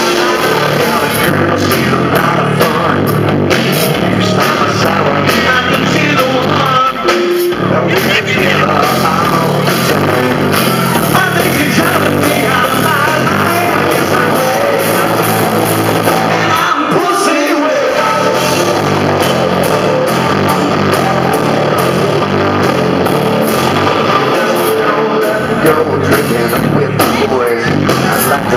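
Live rock band playing loud amplified music with singing, electric guitar and drums, as heard in the audience at a club gig.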